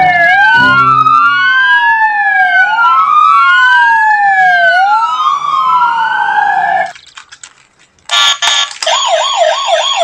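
Two police car sirens wail, each sweeping slowly up and down in pitch, out of step with the other, and cut off about seven seconds in. After a short gap, a faster warbling electronic siren with a steady high whine starts, from a battery-powered toy police car.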